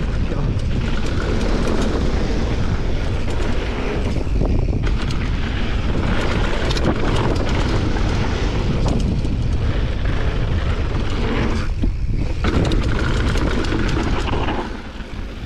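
Wind rushing over the microphone, with a mountain bike's tyres on loose dirt and gravel and the bike rattling and clicking on a fast downhill run; the noise drops sharply about a second before the end.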